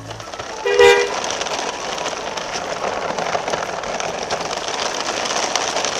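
A vehicle horn toots once, about a second in, followed by a steady rushing vehicle-running noise.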